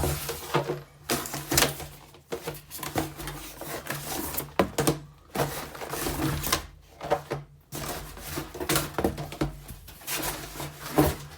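Cardboard box and packaging being handled and opened: irregular rustling, crinkling and knocks as items are pulled out and moved, over a low steady hum.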